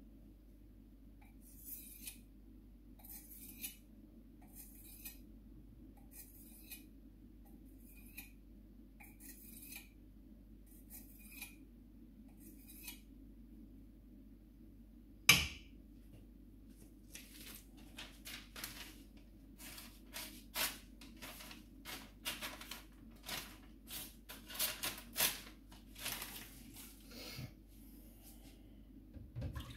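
Short scraping strokes on a white-steel gyuto knife blade, a small hand-held stone drawn along the steel, evenly spaced about one every second and a half. About halfway through comes one sharp loud clack, then quicker, irregular scraping strokes.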